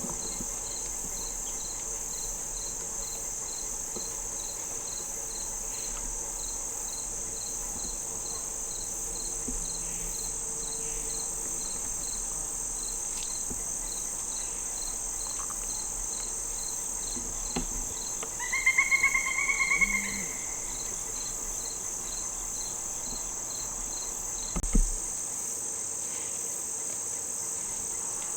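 Steady high-pitched chorus of crickets and other insects, with a regular chirp about twice a second. A short pulsed animal call sounds for about a second and a half some two-thirds of the way through, and a single knock comes near the end.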